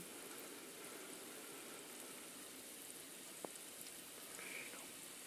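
Faint, steady sizzle of microwave-popcorn kernels and their butter heating in a pan on a stovetop, not yet popping. One light tick about three and a half seconds in.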